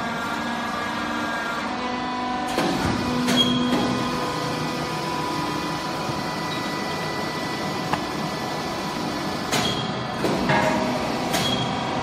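Hydraulic waste baler running with a steady machine hum. Several sharp clanks and knocks come about two and a half to three and a half seconds in, and again over the last two seconds.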